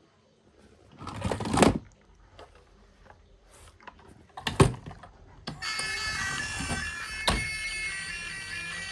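A couple of rustling handling noises and a sharp knock, then about halfway through a droning, reed-like music of several held tones starts and keeps going.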